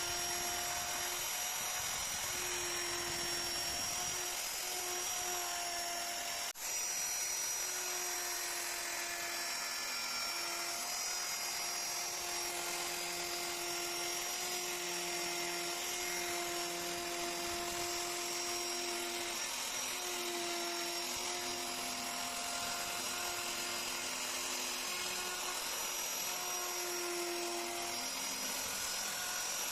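Handheld woodworking power tool running continuously at high speed as it carves wood: a steady whine whose pitch wavers slightly under load. There is one short break about six and a half seconds in.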